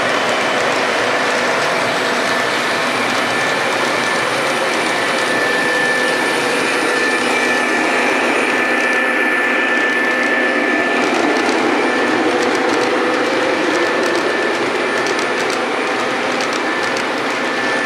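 Model freight trains running on a tabletop layout: a steady rumble and whir of wheels and motors on the track, with a thin high tone throughout. Rapid clicking near the end as cars pass close by.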